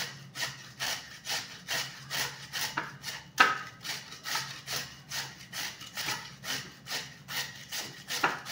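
Raw peeled sweet potato being grated on a hand grater: rhythmic scraping strokes, about two or three a second. There is one sharper knock about three and a half seconds in.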